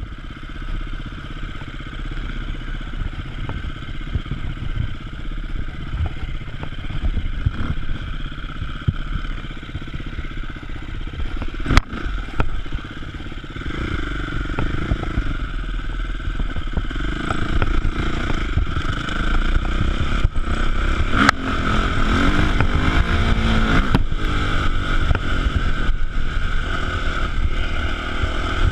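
Enduro motorcycle engine running as the bike is ridden over rough ground, heard through an on-bike camera and getting louder in the second half. Two sharp knocks come about twelve and twenty-one seconds in.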